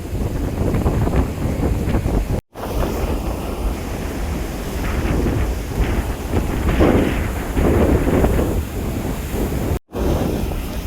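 Heavy cyclone wind buffeting the microphone, with the wash of rough sea underneath and rising in surges. The sound cuts out for an instant twice.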